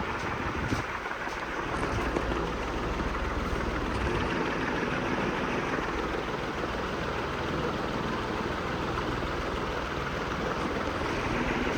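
SK inverter ceiling fan running: a steady rush of moving air with a low hum.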